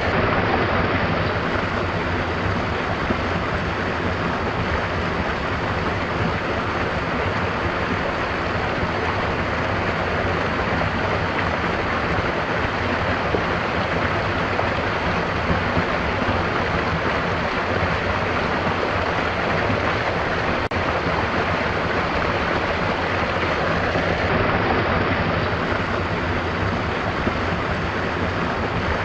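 Stream water flowing and splashing in a steady, unbroken rush.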